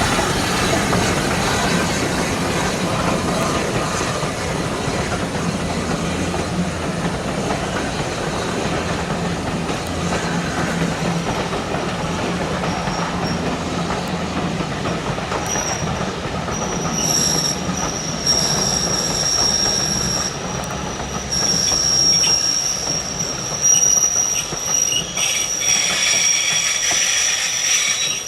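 Heritage railway train rolling past with a continuous rumble of wheels on rail. About halfway through a high, steady wheel squeal sets in and grows louder near the end.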